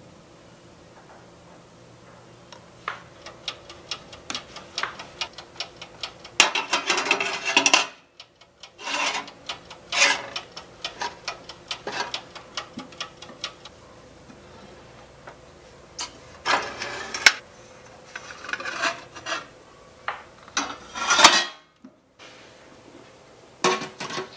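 Close-miked handling of miniature cookware and a small toy-sized oven. Bursts of rubbing and scraping are mixed with light clicks and taps, starting a few seconds in and coming in uneven clusters.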